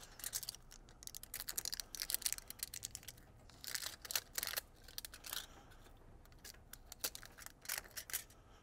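Tape being peeled off, stretched and wrapped by hand around a wire splice: irregular clusters of short crackles and rustles.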